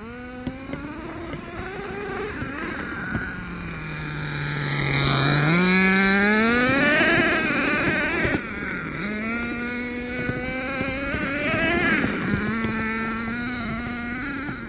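The small HPI F4.6 two-stroke nitro engine of a radio-controlled Traxxas T-Maxx monster truck revving up and down as the truck is driven. Its pitch falls low, then climbs steeply and is loudest about halfway through. It dips and rises again, then holds a steady buzz near the end.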